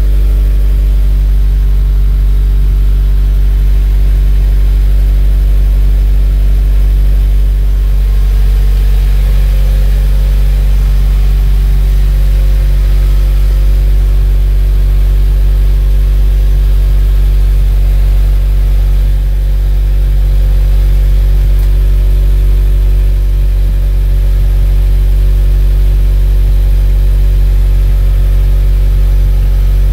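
Subaru WRX turbocharged flat-four idling steadily on a cold start, heard at the quad tips of a Cobb titanium cat-back exhaust fed by a Killer Bee header and Cobb catted J-pipe. It is a steady, deep exhaust note that does not rise or fall.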